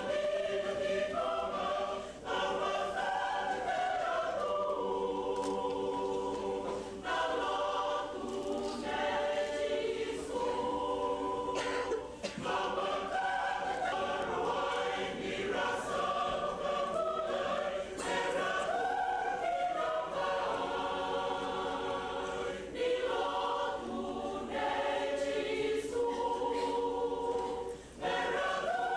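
Choir singing in long held phrases, with a brief breath pause about every five seconds.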